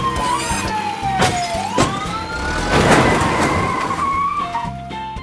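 Police siren sound effect wailing slowly down in pitch, then back up and holding, with short swishing skid-like noises about a second, two seconds and three seconds in, over background music.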